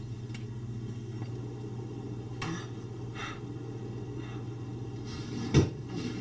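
Steady low hum of room tone, with a few faint rustles and one sharp thump about five and a half seconds in.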